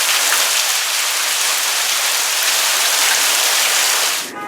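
Heavy thunderstorm rain pouring down, a dense steady hiss of water that cuts off abruptly near the end.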